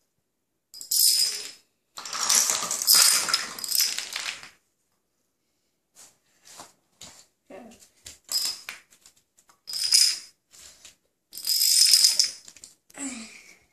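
Small dominoes toppling in chains, several bursts of rapid clattering with short quiet gaps between them.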